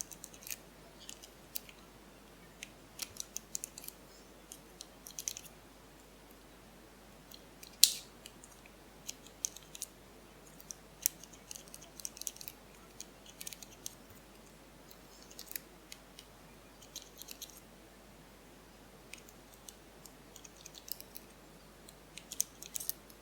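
Metal lock pick clicking and scraping against the pins inside a Soviet high-security tubular-style cylinder lock held under tension, as the pins are worked one by one. Irregular sharp clicks in small clusters, with one louder click about eight seconds in.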